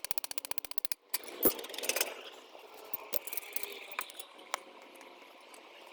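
Ratchet wrench clicking rapidly as a hub bolt is turned, stopping about a second in, then a sharp metal clank and a few lighter metallic clinks of tools and parts being handled.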